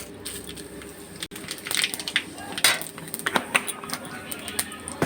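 Whole spices crackling and spluttering in hot oil in a pan during tempering, with a metal spoon clinking against the pan; the crackling gets louder and denser about a second and a half in.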